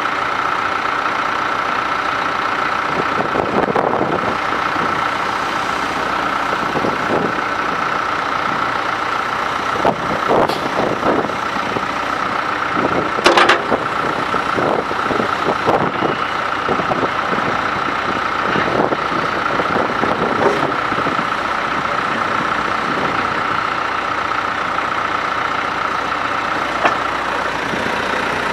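John Deere 310SJ backhoe loader's diesel engine running steadily, with a constant whine over it and a few clanks and knocks, the sharpest about halfway through.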